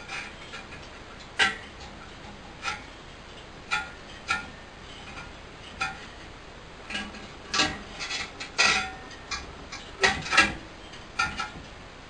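Wire-mesh screen and its spot-welded wire ring knocking and rattling inside a beehive hair dryer's hood as they are yanked by hand: about a dozen irregular sharp knocks, some ringing briefly, coming more closely together in the second half. The ring's legs are holding fast and not breaking loose.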